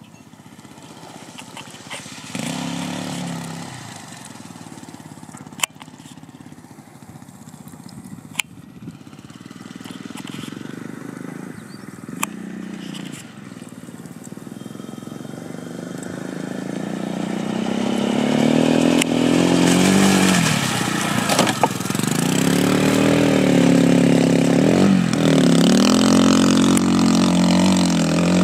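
Sport quad (ATV) engine, faint and distant at first with short revs, then growing steadily louder as it comes close. In the last ten seconds its revs rise and fall sharply with the throttle.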